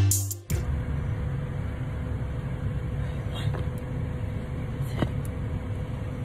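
Background music cuts off abruptly about half a second in, leaving a steady low rumble of outdoor street noise with a faint steady hum and a few soft clicks.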